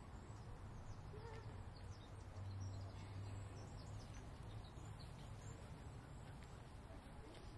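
Quiet station ambience: a low steady rumble, a little louder around two and a half to three and a half seconds in, with small birds chirping faintly and briefly here and there.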